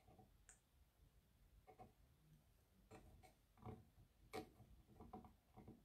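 Near silence broken by a dozen or so faint, irregular clicks and light taps of small craft materials being handled, the clearest about four and a half seconds in.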